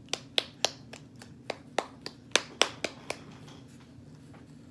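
A quick, irregular run of about a dozen sharp plastic clicks and taps as a small plastic bottle is handled, dying away about three seconds in.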